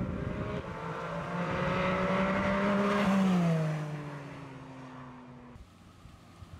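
The 2024 Porsche GT4 RS's 4.0-litre flat-six accelerates past with its note climbing and getting louder. As the car goes by, the pitch drops and the sound fades away. Near the end it cuts to a faint, distant engine.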